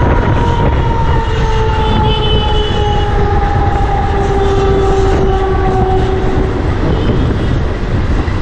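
Mumbai suburban electric local train running along the track, heard from the open doorway: a steady rumble of wheels and air, with a whine that falls slowly in pitch and fades out about six and a half seconds in.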